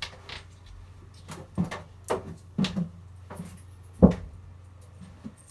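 Hollow knocks and bumps on a kiddie ride's plastic body, about eight short ones, the loudest about four seconds in, over a steady low electrical hum from the idle ride.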